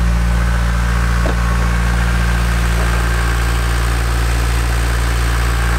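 Volvo Penta D2-55 four-cylinder marine diesel idling steadily just after an oil change, running smoothly: "as sweet as a nut".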